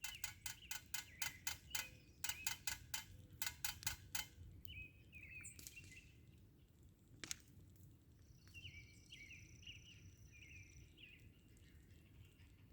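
A woodpecker pecking: three quick runs of sharp, ringing taps, about five a second, over the first four seconds. Short bird chirps follow, a few just after and a longer run of them later on.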